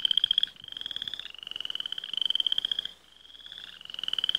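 A frog trilling: a fast, pulsing, high-pitched trill in several long phrases with short breaks between them.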